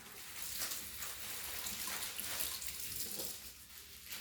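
Water running from a kitchen tap, a steady hiss that eases off toward the end.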